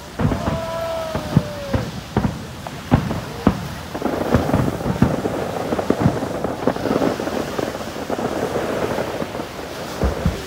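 Japanese aerial fireworks shells bursting with sharp, irregular bangs, then a dense spell of crackling from about four seconds in to near the end.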